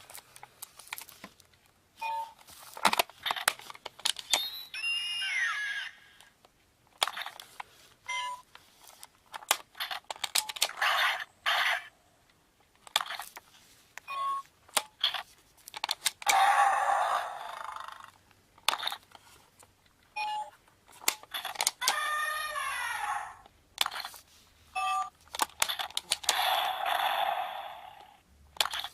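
Zyuoh Changer Final toy transformation device: its buttons click, it gives short beeps, and its speaker plays a series of recorded animal sound effects a second or two each, some with falling calls.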